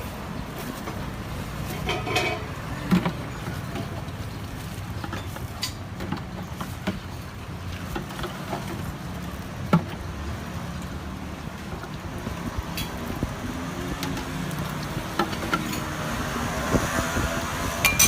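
Street ambience dominated by a steady traffic rumble, with scattered short clicks and knocks through it and a brief snatch of voice about two seconds in.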